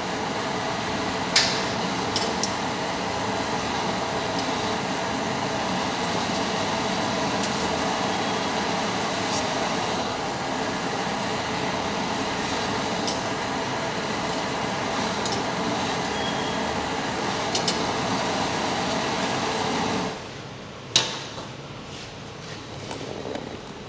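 Gas stove burner flame rushing steadily under a roti, with a few sharp clicks of metal tongs against the burner grate. About 20 seconds in the burner is turned off and the rushing stops, followed by a single click.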